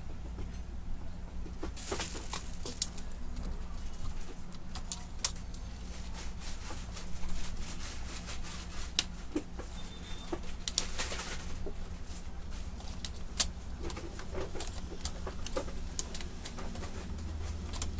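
Plastic and metal parts of a Brother DCP-T710W inkjet printer being handled and fitted back into its chassis by hand: scattered clicks, taps and short rattles, over a steady low hum.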